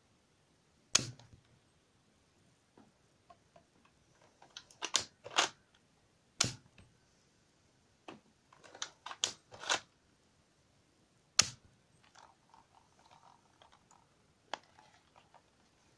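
Plastic toy M1911 pistol being worked: a series of sharp plastic clacks as its slide is racked and mock shell casings are ejected. The clacks come singly over several seconds, with a quick run of them just before the middle.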